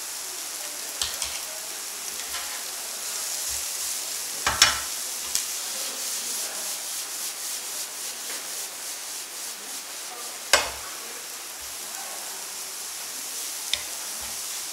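Shredded cabbage and vegetables stir-frying in a pan over a gas flame: a steady sizzle with stirring, scraping and tossing in the pan, and two sharp knocks, one about four and a half seconds in and one about ten and a half seconds in.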